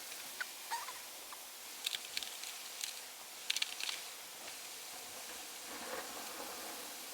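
Rain pattering steadily, with a scatter of light clicks and taps, most of them in the first four seconds.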